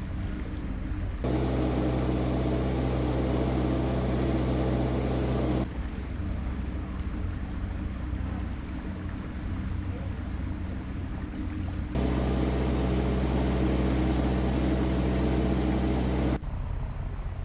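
Narrowboat engine running steadily while cruising, a low, even hum. It is louder and fuller in two stretches that begin and end abruptly.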